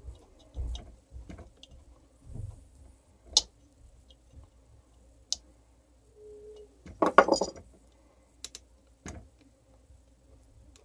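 Scattered small clicks and taps of hand tools and electrical wire against an opened hammer drill's plastic housing as the wire insulation is worked off, with a louder cluster of rustling scrapes about seven seconds in.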